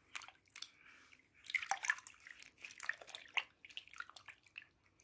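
Hands swishing and rubbing a piece of cross-stitch canvas in a basin of soapy water, making irregular small splashes and drips while the marker lines are washed out of it.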